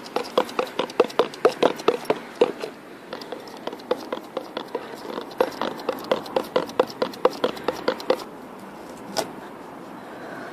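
A plastic cup stuck over a hedgehog's head, knocking and scraping on asphalt as the hedgehog walks: rapid, irregular clicks, about four or five a second. They stop about eight seconds in, and a single click follows about a second later.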